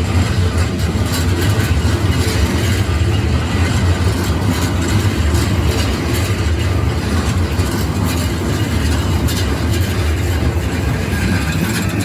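Keikyu Line electric train passing over a level crossing: a steady low rumble of wheels and motors on the rails, with scattered clicks from the wheels over the rail joints.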